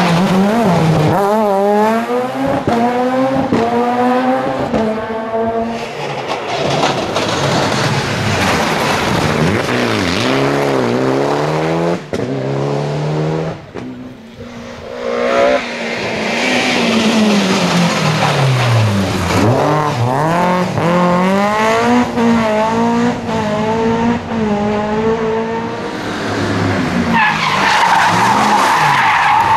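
Rally cars at full effort on a tarmac stage, engines revving up through gear changes and dropping off for corners, one car after another. There is a sharp bang and a brief lull midway, and tyre squeal.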